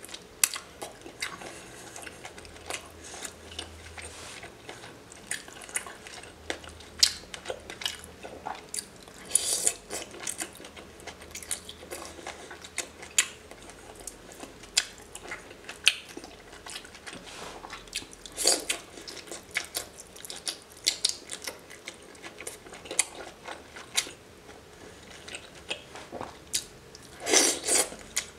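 Close-miked eating of raw seafood: wet chewing, lip smacks and sticky clicks, as pieces of raw octopus are dipped in sauce and bitten. The clicks are irregular, with a few louder clusters of smacking.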